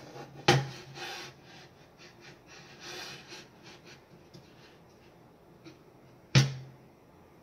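Walnut cutting board being set down and slid around on the slatted bed of a laser engraver. A sharp wooden knock about half a second in and another near the end each leave a short low boom, with scraping and rubbing of the board between them.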